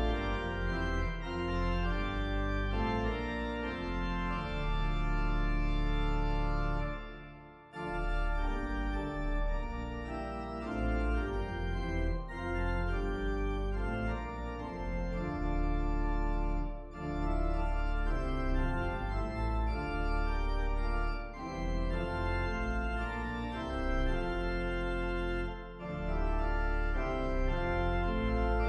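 Organ playing slow sustained chords, with a short break about seven seconds in.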